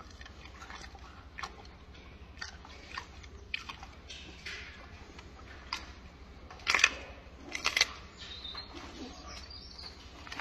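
Gorilla eating a banana peel: wet chewing and smacking clicks from its mouth, with the loudest bites about seven seconds in.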